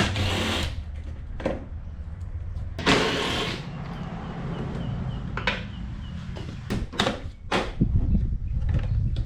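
Plastic cover being pried and pulled off a car to reach the AC compressor: scattered sharp clicks and knocks with two short scraping rushes, over a low steady rumble.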